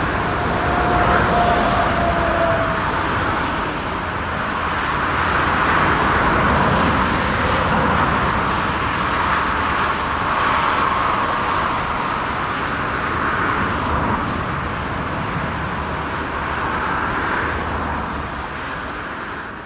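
Steady jet noise from a Boeing 747's four engines as the airliner climbs away, fading gradually near the end.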